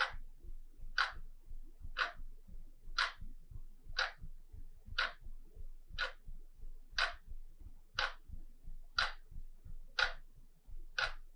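Wall clock ticking steadily, about one sharp tick a second.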